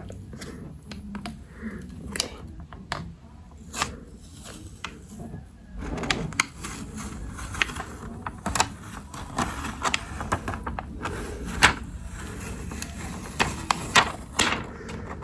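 Hands handling a cardboard box and its packaging: irregular clicks, taps and scrapes of cardboard and plastic.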